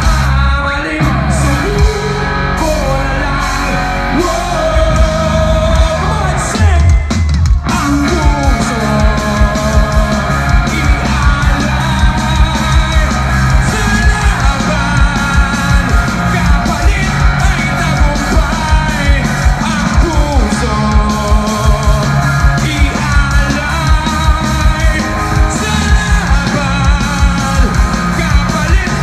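Live rock band playing with a lead singer singing into a microphone. About seven seconds in the music breaks off for a moment, then the full band comes back in with a steady drum beat.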